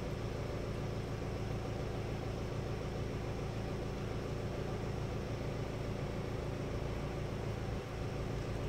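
A steady low mechanical hum with a rumble, even and unchanging throughout.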